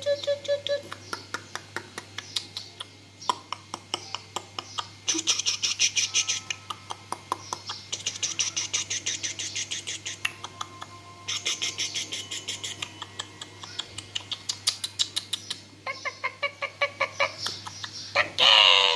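Strange bird-like chattering: rapid clicking pulses with bursts of high chirps and squawks lasting a few seconds each, ending in a louder call that bends up and down in pitch.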